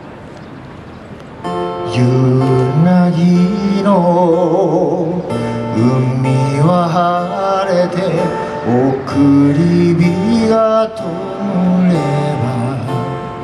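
A man singing to his own strummed acoustic guitar, his voice wavering with vibrato on held notes. A guitar chord is dying away at first; strumming and singing come in about a second and a half in.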